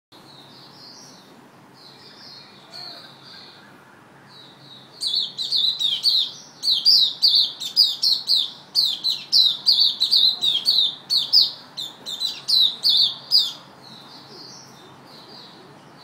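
Young caged songbird singing: soft high chirps at first, then about five seconds in a loud run of short, high, falling notes, about three a second, easing back to soft chirps near the end. This is the bird 'opening up' (buka) into full song.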